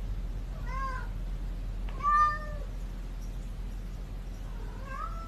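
A domestic cat meowing three times: short calls about a second in, near two seconds and near the end, the middle one the loudest and longest, the last one rising in pitch. A steady low hum runs underneath.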